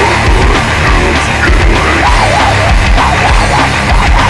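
Loud mince grindcore music, a dense unbroken wall of sound.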